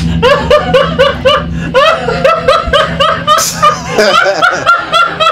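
Several people laughing hard together, a long run of quick ha-ha pulses, a few voices overlapping.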